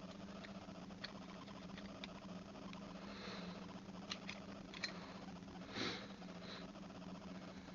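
Small hand-handling noises of fishing rod and reel parts: scattered faint light clicks and one short scraping rustle about six seconds in, over a steady low hum.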